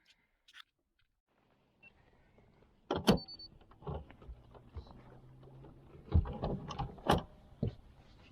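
Several sharp knocks and thumps on a fishing boat, loudest about three seconds in and again around six to seven seconds, over a faint steady motor hum.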